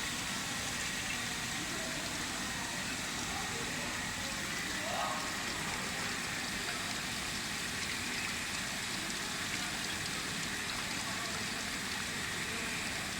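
A 3D-printer filament extrusion line running: a steady, even hiss of machine noise with a faint continuous whine.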